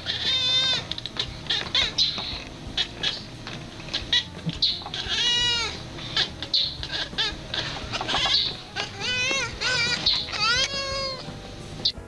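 Orange tabby cat meowing: several drawn-out calls, each rising then falling in pitch, spread through the stretch, with a cluster of them near the end.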